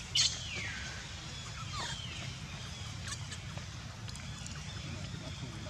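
Newborn macaque squealing: a sharp high cry about a quarter-second in that slides down in pitch over most of a second, then a shorter falling squeak about two seconds in, over a steady low rumble.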